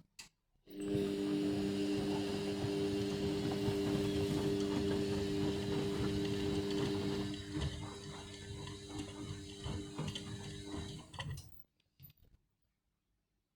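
Indesit washing machine running for about ten seconds with a steady hum and mechanical whirring, starting about a second in and stopping near the end, a little quieter over its last few seconds.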